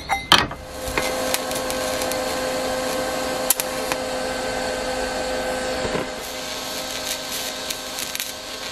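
TIG welding arc burning steadily as a rose joint is welded onto a square steel tube: an even hiss with a faint hum, the hum dropping away about six seconds in. A couple of metal clinks from the parts being positioned come just before the arc strikes.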